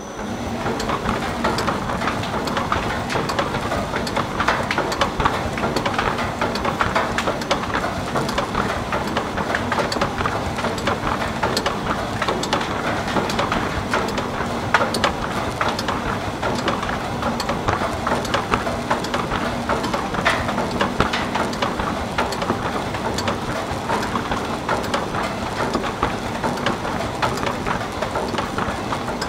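Industrial milling machine running with a panel fed through under its feed rollers: a steady, dense crackling and rattling noise over a faint even hum, starting abruptly at the beginning.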